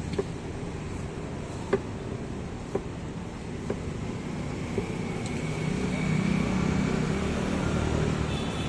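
Knife blade striking a cutting board about once a second, five sharp chops while watermelon is cut, over steady street traffic noise that swells louder in the second half.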